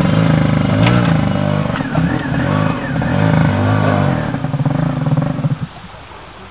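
Dirt bike engine revving up and down repeatedly as the rider works the bike through a rocky stream crossing. It cuts out suddenly about five and a half seconds in.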